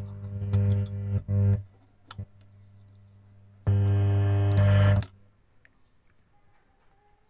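Speaker driven by a homemade transistor amplifier giving a loud low buzz that cuts in and out abruptly twice, each time for about a second and a half, with crackling clicks as the MP3 player's input leads are handled.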